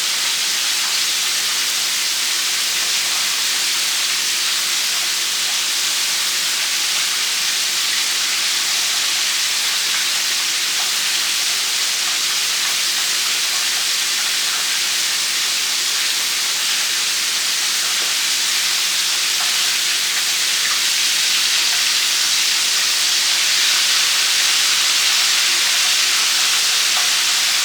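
Breaded chicken drumsticks frying in hot oil: a steady sizzle that grows a little louder over the last few seconds.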